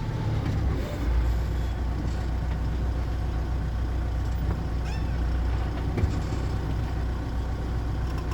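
Steady low engine rumble of a motor vehicle running, setting in about a second in.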